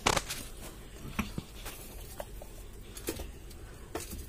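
Scattered light clicks and taps over low room noise, the sharpest click right at the start and a few smaller ones spread through.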